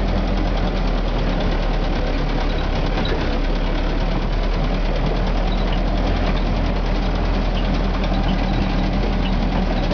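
Steyr-Puch Pinzgauer off-road vehicle's engine running steadily at a constant pitch under load, with a constant clatter, heard from inside the cab.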